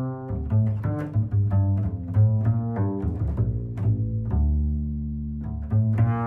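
Background music led by a bass, playing a quick run of plucked notes with one longer low note about four seconds in.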